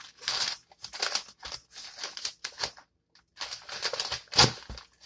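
Brown paper mailer crinkling and rustling in irregular bursts as it is pulled open and a hand rummages inside, with one louder crinkle near the end.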